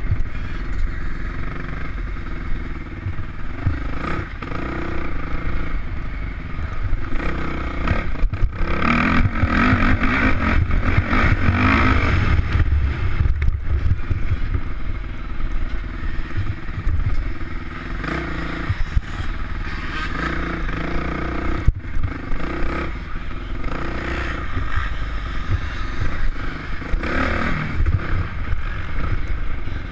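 Off-road motorcycle engine running under the rider, revving up and easing off again and again as it is ridden over rough dirt and grass, loudest and hardest-revving around ten to twelve seconds in. A heavy low rumble runs underneath, with the odd sharp knock.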